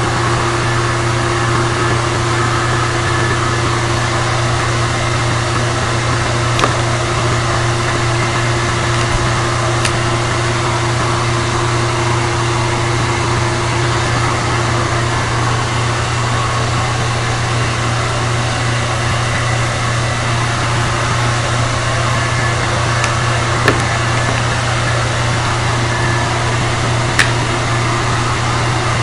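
A steady, unchanging electrical or machine hum with even hiss, with four faint clicks scattered through it.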